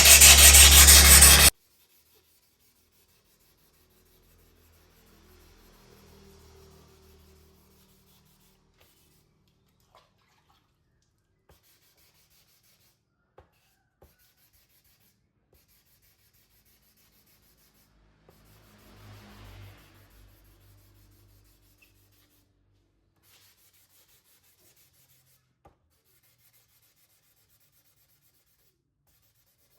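Wet sanding of dried body filler on a motorcycle body panel with 800-grit sandpaper and soapy water: a loud, even rubbing that cuts off suddenly about a second and a half in. After that, near silence with two short stretches of faint rubbing and a few small clicks.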